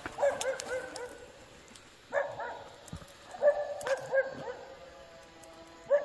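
Small dog yapping in quick runs of short, high-pitched barks: four bursts with pauses between them.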